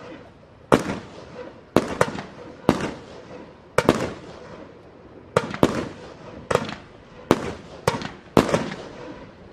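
Fireworks from small mortars going off in quick succession: about a dozen sharp bangs, roughly one a second and sometimes two close together, each trailing off in a brief crackle.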